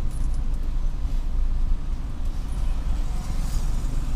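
Steady low rumble of a motor vehicle's engine running, with road traffic.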